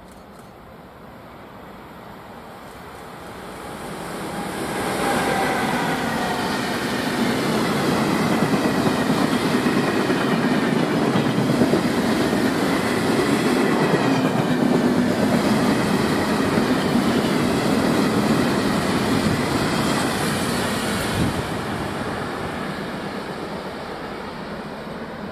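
A freight train of empty stake wagons rolls past, its wheels running on the rails. The sound swells over the first few seconds, holds steady while the wagons go by, and fades as the train draws away near the end, with a single knock shortly before the fade.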